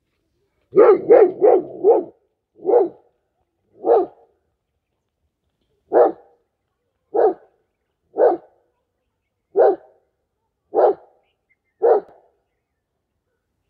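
German Shepherd barking: a quick run of four barks about a second in, then single barks every one to two seconds.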